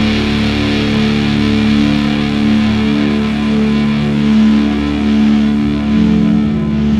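Heavy rock recording in which a distorted electric guitar sustains a ringing chord, with no drum beats.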